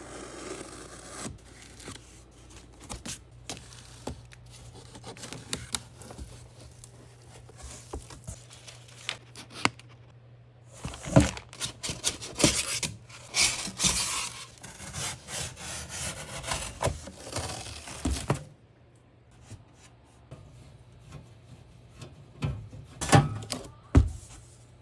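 Packaging being handled and torn open, likely the water heater's box: irregular scraping, rubbing and tearing, with sharp clicks and knocks. The busiest stretch falls in the middle, and there is another short flurry near the end.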